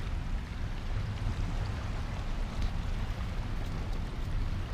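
A boat's engine running inside a sea cave, a steady low rumble, with the wash of water around it.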